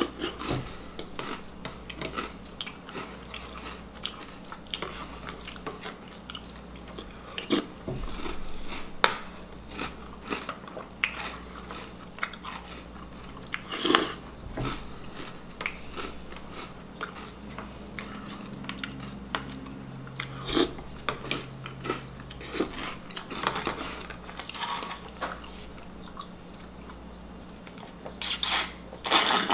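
Chewing and crunching mouthfuls of Reese's Puffs cereal in milk, with scattered sharp clicks of a metal spoon in a plastic bowl. Near the end, slurping the milk straight from the bowl.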